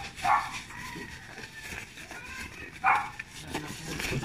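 Thin disposable plastic gloves crinkling and rustling as they are pulled onto the hands. Two louder short sounds stand out, a little after the start and again near three seconds in.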